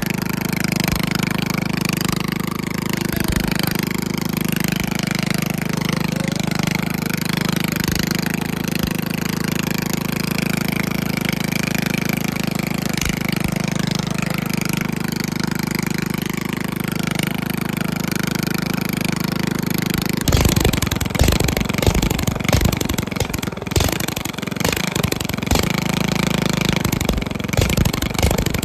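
Craftsman riding mower engine running loud through a short hood-stack exhaust pipe, a steady drone for about twenty seconds. After that it turns uneven and choppy, with irregular loud bursts.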